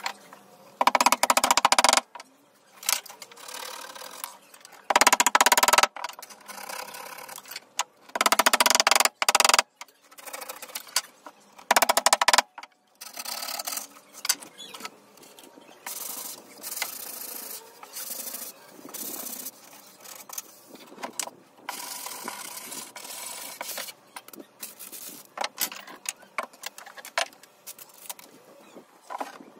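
Workshop noise while a wooden game board is assembled: four short, loud bursts of about a second each in the first half, then lighter, irregular scraping and rubbing on wood.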